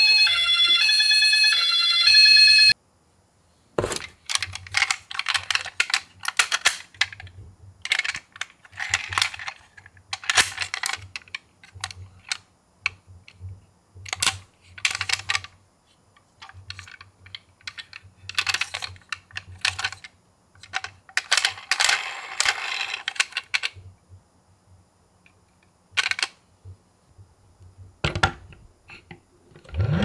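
Irregular small clicks, taps and rustles of a die-cast toy ambulance being handled in a cardboard box, with a sharp click about 26 seconds in. In the first three seconds an electronic stepped-tone siren sounds and then cuts off.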